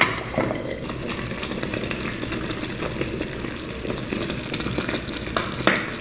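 Thick corn pudding bubbling and popping in a covered pot on a gas burner, a steady low rumble flecked with small pops. Near the end come a couple of knocks as the lid comes off and the spoon goes into the pot.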